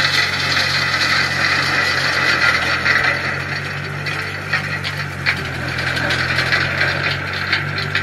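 Compact tractor running with its rear-mounted rototiller churning through the driveway's loosened muck and gravel: a steady engine hum under a coarse grinding, scraping noise with scattered ticks.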